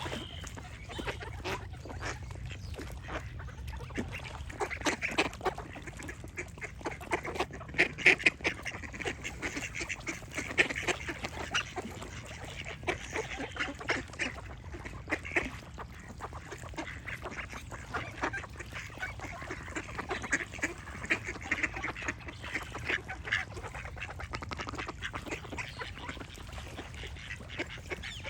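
A flock of ducks quacking, with many short calls overlapping in a continuous chorus over a steady low rumble.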